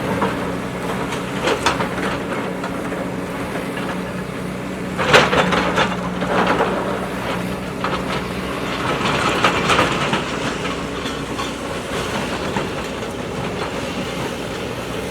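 JCB backhoe loader's diesel engine running steadily, with a loud metallic knock from the digging gear about five seconds in and lighter knocks around two and ten seconds.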